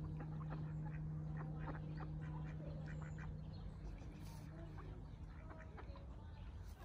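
Ducks quacking, many short calls in quick succession, over a low steady hum that fades out about halfway through.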